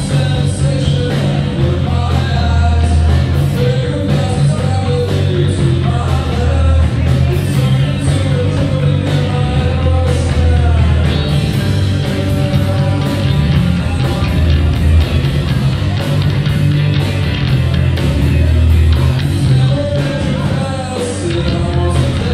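A live rock band playing loud in a small club: electric guitars, bass and drums with a singer, the heavy bass strongest.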